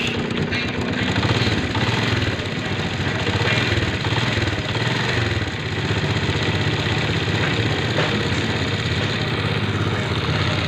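Small motorcycle engine idling steadily with its timing chain tensioner freshly bled of air and retightened; the ticking timing-chain noise is gone and the engine runs smoothly.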